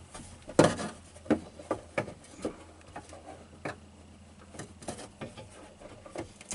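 Irregular light clicks and small knocks of hand work with side cutters on a car door's metal window channel, cutting and pulling loose pieces of its worn-out lining. The loudest knock comes about half a second in.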